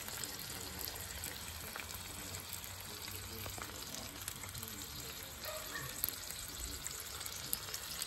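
A5 Wagyu ribeye and its rendered fat sizzling on a hot steel flat-top griddle: a steady frying crackle with a couple of small pops near the end.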